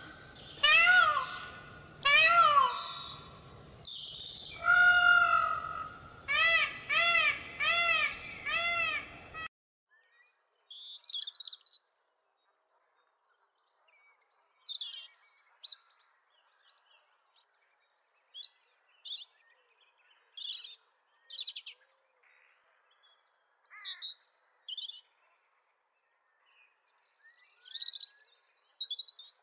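Indian peafowl calling: loud, wailing, pitch-arching calls, the last several short and coming about two a second. The calls stop abruptly, and scattered short, high bird chirps and peeps follow.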